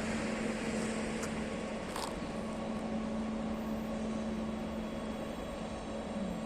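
Electric locomotive of ČD class 151 humming steadily, a constant low tone over fan-like noise from its running equipment. Two brief clicks come about one and two seconds in.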